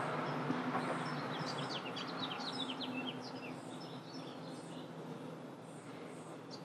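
Small birds chirping in the background: a quick run of short, downward-sliding chirps about a second in, with fainter high calls repeating throughout, over a steady low hum.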